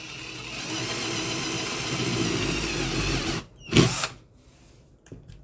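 Small electric drill running steadily for about three and a half seconds, drilling a balancing hole in the hair dryer's plastic fan, then stopping. One sharp knock follows just before the four-second mark.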